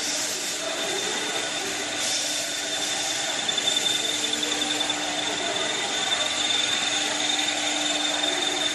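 CNC wood lathe running and turning wood, with a steady high motor whine over hissing cutting noise and brief louder cutting surges near the start and about two seconds in.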